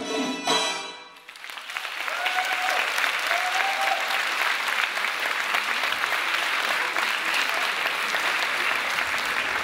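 Georgian folk dance music ends on its final note about a second in, and the audience breaks into sustained applause, with a couple of short cheers near the start of the clapping.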